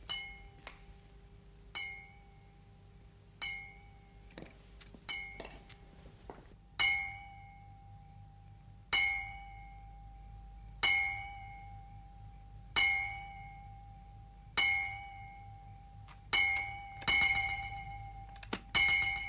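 Bell-like metallic tone struck about every two seconds, each strike on the same note ringing out and fading, with a quick run of rapid strikes near the end: sparse music on the soundtrack.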